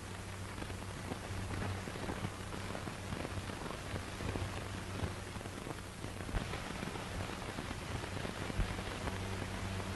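Crackle and hiss of a worn optical film soundtrack, full of fine random clicks, over a steady low hum. The hiss changes a little about six seconds in.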